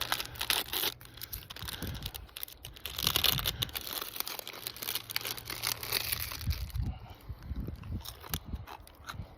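Foil chip wrapper being torn open and crinkled, in irregular bursts of rustling and crackling.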